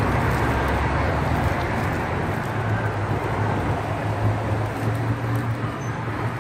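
Steady background traffic rumble with a continuous low hum, and faint crinkling of the cellophane wrapper around the pastry.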